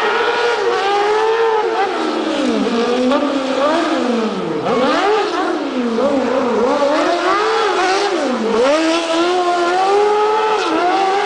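Competition car's engine revving hard and pulling its pitch up and down again and again as it is driven in skids around a cone course.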